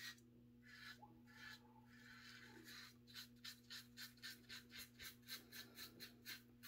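1959 Gillette Fatboy adjustable double-edge safety razor with a Gillette Silver Blue blade, scraping faintly through lathered stubble on the neck. A few longer strokes come first, then a quick run of short strokes, about five a second.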